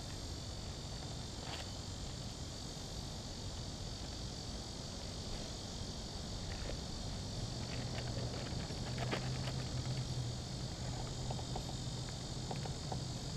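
Steady high-pitched drone of insects, with a few short clicks and rustles of a meal packet being handled. A low steady hum joins about halfway through.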